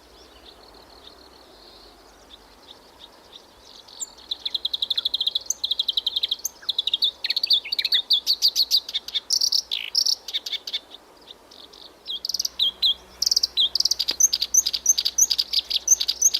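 Reed warbler (kerak basi) singing a loud, fast chattering song of rapidly repeated harsh notes. It starts about four seconds in, pauses briefly partway through, then picks up again to the end. Before the song there is only a faint high insect-like hiss.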